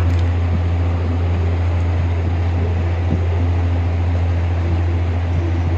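A loud, steady low hum under a noisy hiss, unchanging throughout.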